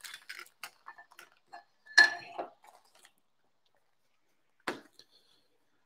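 Quiet tabletop handling noise: scattered light clicks and rustles as an instruction sheet and small printer parts are handled, with a sharper, briefly ringing clink about two seconds in and one more click near the end.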